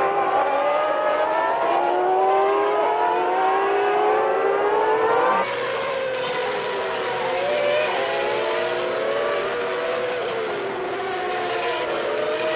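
Formula One cars' 3-litre racing engines running at high revs, several pitches rising and falling together as the cars accelerate and change gear. About five seconds in the sound changes abruptly to another group of engines at a lower, wavering pitch.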